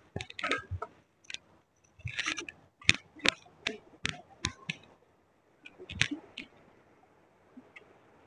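Close handling noises: an irregular run of sharp clicks and rustles for about five seconds, then another short cluster about six seconds in.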